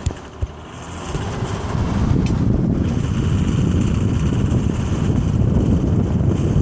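Lexus ES330 pulling away, recorded through a microphone held outside the car: two sharp knocks of the microphone being handled, then a rough rumble of engine, road and wind on the microphone that builds about a second in and holds steady.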